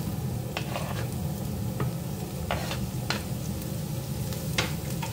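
Chopped vegetables sizzling gently in oil in a frying pan, with a handful of short scrapes and knocks as chopped leek and green pepper are tipped in from a cutting board and stirred with a silicone spatula. A steady low hum runs underneath.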